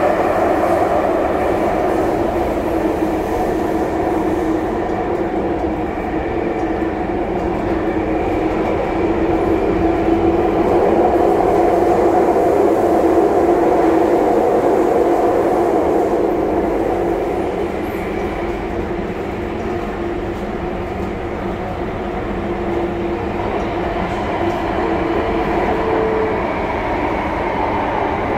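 SMRT C830C Alstom metro train running between stations, heard from inside the car: a steady rumble and hum that grows louder about ten seconds in and eases off after about seventeen seconds.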